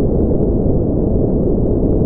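Steady, deep rumbling noise with no breaks, rhythm or tone, and nothing high-pitched in it.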